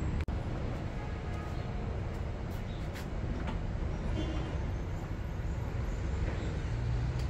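Steady low background rumble, with a few faint light clicks and knocks of plastic as a headlight unit is handled and seated into the front bumper.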